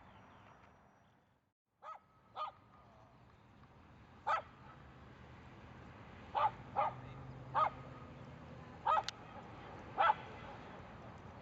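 Dog barking: about eight short, sharp barks at irregular intervals, after the sound briefly cuts out near the start.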